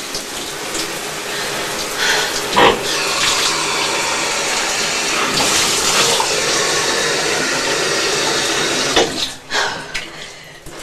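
Shower water spraying steadily, with a sharp knock about two and a half seconds in; about nine seconds in the spray stops and it goes much quieter.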